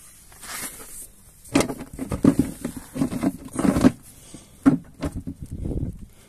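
Handling noises as a plastic bucket is shuffled into place on gravel and grass: several short bouts of scraping and knocking, with a sharp click about four and a half seconds in.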